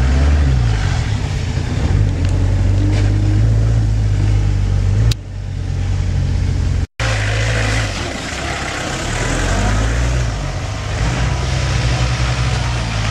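Engine of an off-road 4x4 running and revving, its pitch rising and falling, with a brief dropout to silence about seven seconds in.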